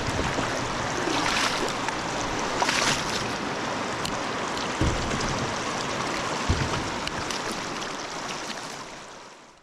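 Flowing river water rushing steadily, with a couple of soft low thumps partway through; the sound fades away near the end.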